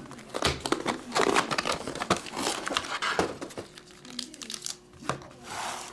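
Plastic wrapping and foil card packs crinkling and rustling in quick, irregular crackly bursts as a hobby box of trading cards is opened and its packs and plastic-cased cards are handled.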